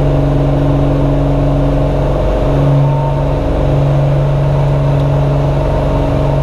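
Cirrus single-engine piston airplane's engine and propeller running at full takeoff power, heard from inside the cabin as a loud, steady drone. The pitch briefly rises a little about two and a half seconds in.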